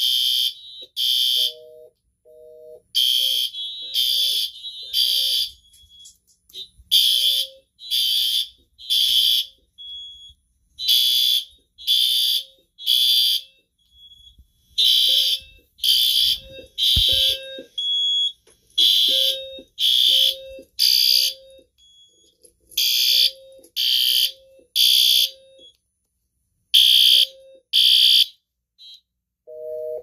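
System Sensor fire alarm horns sounding the temporal-three evacuation pattern: three short high-pitched blasts, a pause, repeating about every four seconds. The last group has only two blasts before the horns stop near the end.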